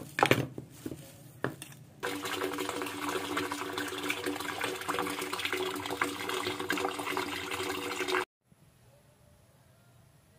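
Plastic bag rustling with a few sharp crackles, then water from a tap running steadily into a plastic basin, cutting off abruptly about eight seconds in.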